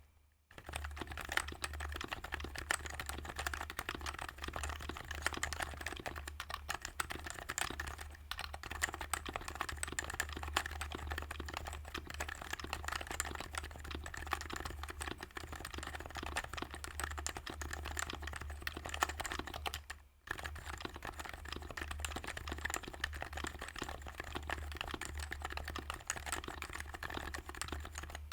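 Continuous fast typing on a Sho S60 v2 custom keyboard fitted with HHKB Pro 2 Topre switches and OEM-profile HHKB keycaps, a steady stream of key presses with a brief pause about 20 seconds in.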